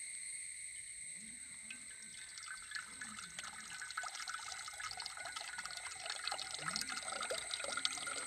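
Cooking oil poured in a thin stream into a wide aluminium pan, trickling and pattering into the growing pool; the patter gets busier from about a third of the way in. A steady high whine sits underneath.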